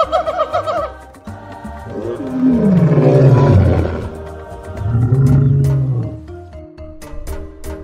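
Lion roaring twice, a long low roar that falls in pitch followed a second later by a shorter one, over background music.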